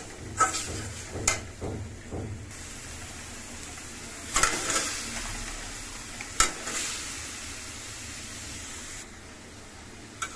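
A metal spatula scrapes and knocks against a metal karahi while dried-fish masala sizzles in hot oil. Partway through, chunks of radish and potato go into the pan and are stirred into the frying masala.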